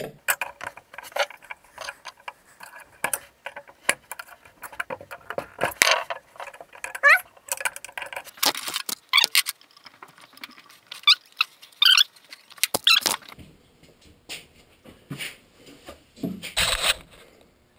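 Metal hand tools clicking, scraping and knocking against the pulley of an electric motor as it is worked loose, with several short metallic squeaks. A louder clatter of tools comes near the end.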